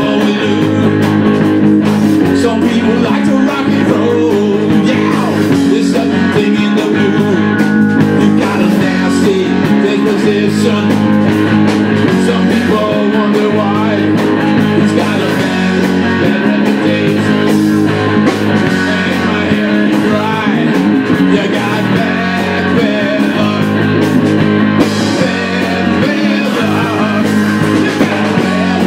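Live rock band playing loud and steady: electric guitar over bass guitar and a drum kit.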